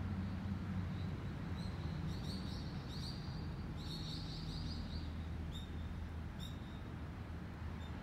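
A small bird chirping in several short, rapid trilled phrases, then two single chirps, over a steady low hum.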